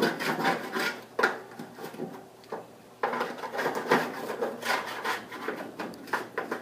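Lil Chizler hand scraper scraping grease and grime, loosened with oven cleaner, from the inside of a grill in repeated strokes. The strokes ease off about a second and a half in and start again about three seconds in.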